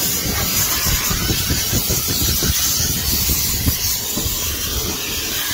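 Loud steady hiss with an irregular low rumble underneath.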